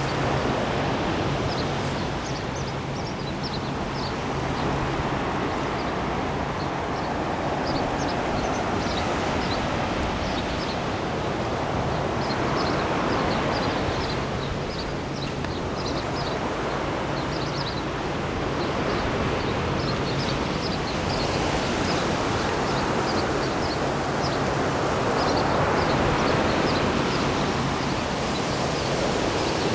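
Surf washing on a beach: a steady rushing noise that swells and fades every several seconds as waves break and run up. Many short, high chirps are scattered over it throughout.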